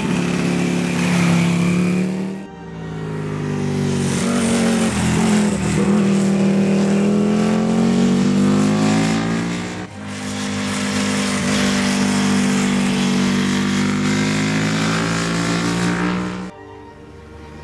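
Britten V1000 race bike's V-twin engine at speed on track, its note dipping and climbing as the throttle is shut and opened. The sound changes abruptly twice, as the bike is heard from different places on the circuit.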